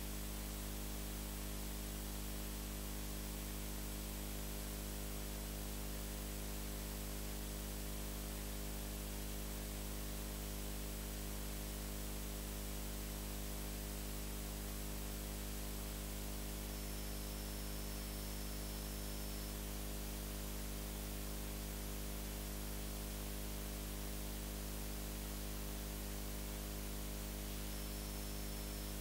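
Steady electrical hum and hiss with no other sound: a low mains-type hum with its overtones under a constant background hiss, unchanging throughout.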